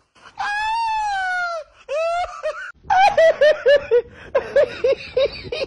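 A high voice gives one long wail that slides slowly downward, then a quick run of high-pitched laughs, about four a second.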